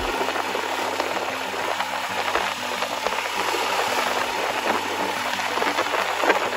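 Wind rushing over the microphone of a motorcycle at road speed, with the Royal Enfield Himalayan's single-cylinder engine running steadily underneath.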